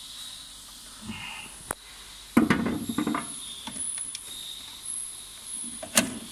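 Handling noises from an electrical switch being worked loose and pulled out of a machine's control box: a sharp click, then a short clatter of plastic and metal parts, then another click near the end, over a faint steady high-pitched hiss.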